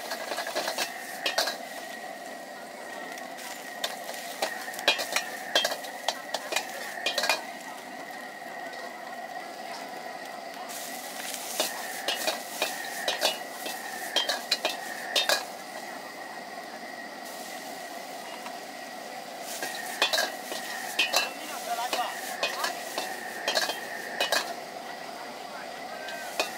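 Stir-frying in a wok over a gas burner: food sizzling while a metal ladle and then chopsticks stir against the wok in repeated bursts of clatter. The sizzle grows louder for several seconds around the middle.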